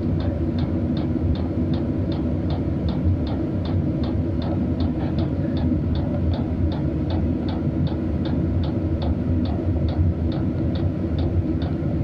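Vevor Chinese diesel heater running: a steady low rumble from its combustion blower and burner, with the fuel dosing pump ticking evenly about two to three times a second.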